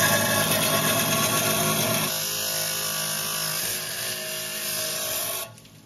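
A motorised wet stone-cutting saw running as a rough stone is pushed through its circular blade, a steady machine drone that stops abruptly near the end.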